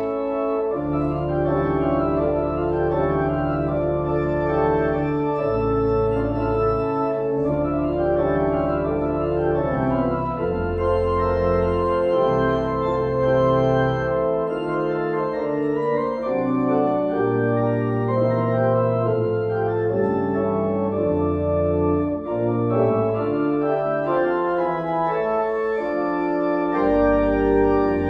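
Organ postlude closing the service: sustained full chords over low bass notes that change every second or two.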